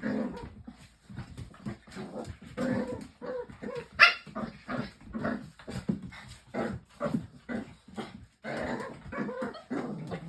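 Two dogs play-fighting, growling and barking in short bursts, with one sharp, louder bark about four seconds in. There is no yelping, the sign that this is play and not a real fight.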